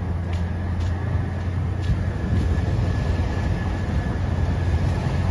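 Diesel engines of a John Deere motor grader and a Volvo wheel loader running under load as they plow snow: a steady low rumble, with a faint steady whine above it.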